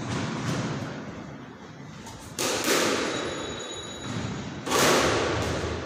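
Two loud thuds, one about two and a half seconds in and one near five seconds, each dying away slowly in the echo of a large hall.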